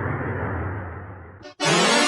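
Edited bus horn sound-effect variations: a low, noisy, rumbling variant fades away, then, after a brief gap about one and a half seconds in, a loud pitched horn variant starts and slides upward in pitch.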